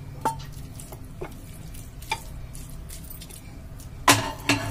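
Wooden spatula scraping and tapping against a steel pan and a plate while serving noodles: a few light clicks, then two louder knocks about four seconds in, over a low steady hum.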